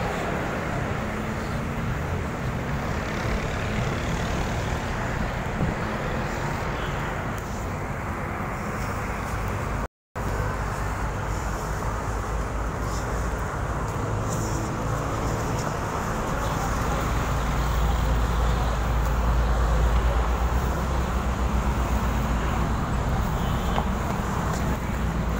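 Steady traffic noise from a busy multi-lane road, with cars, vans, jeepneys and motorcycles passing. A deeper rumble swells up for several seconds past the middle. The sound cuts out for an instant about ten seconds in.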